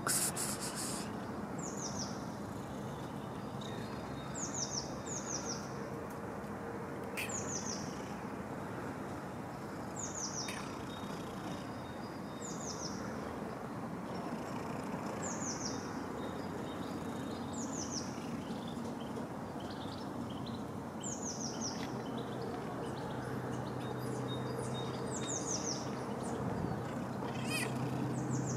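A small bird repeating a short, high, falling chirp every couple of seconds over steady outdoor background noise, with a low hum rising near the end.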